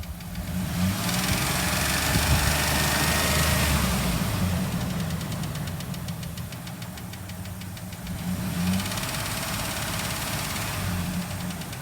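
2004 Dodge Dakota 3.7-litre V6 running with a fast, even clicking that follows engine speed; it is revved briefly about a second in, then settles back toward idle, with the clicking still there. The clicking has been there for about a year, and a shop has said it is not coming from the engine itself.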